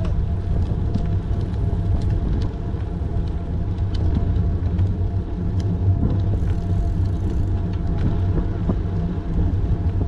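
Steady low rumble of wind and tyre noise on a camera riding along on a moving bicycle, with a few faint ticks.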